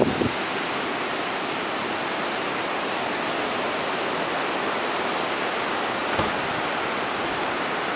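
Steady rushing noise of Hurricane Sandy's storm wind, even and unbroken, with a brief faint knock about six seconds in.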